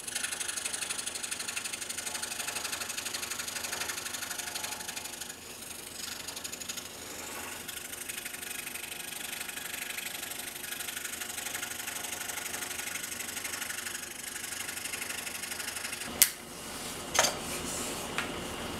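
Scroll saw running steadily with a fine, even chatter as its blade cuts balsa wood. Near the end come one sharp click and a couple of softer knocks.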